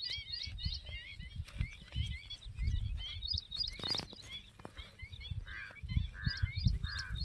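Small birds chirping rapidly and continuously, with three short, harsher bird calls near the end and a low, uneven rumble underneath.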